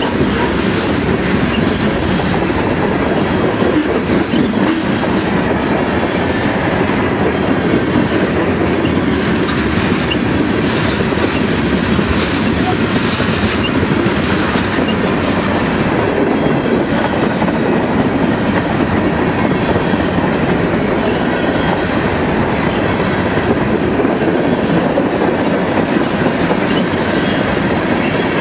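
Freight cars of a passing Huron & Eastern train, covered hoppers and then tank cars, rolling by close at hand. Their steel wheels make a steady, continuous noise on the rails.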